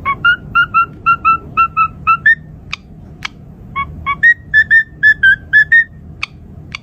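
Parrot whistling a quick run of short, clear notes, about four a second. It pauses briefly midway, where two sharp high chirps sound, then whistles another run at a slightly higher pitch.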